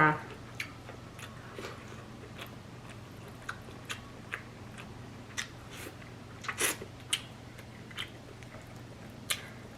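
A person chewing seafood close to the microphone: scattered short mouth clicks and crunches, with a louder cluster about six and a half to seven seconds in and another near the end.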